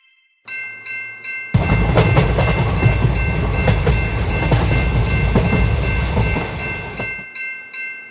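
Railway level-crossing warning bell ringing in rapid repeated dings. About a second and a half in, a train passes through with a heavy rumble and wheels clicking over rail joints. The train sound dies away a little after seven seconds in, while the bell keeps ringing until near the end.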